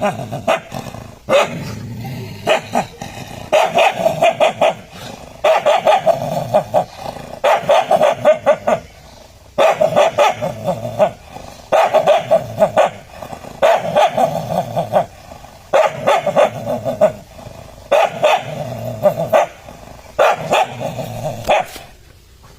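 An angry dog barking aggressively in about eleven bouts of rapid barks, one roughly every two seconds, with growling in between.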